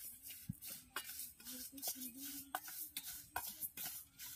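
A metal spoon stirring dry-roasted whole spices (dried red chillies, cumin, coriander, fennel and mustard seeds) in a stainless steel bowl: a scatter of light clicks and scrapes as the spoon and seeds knock against the steel.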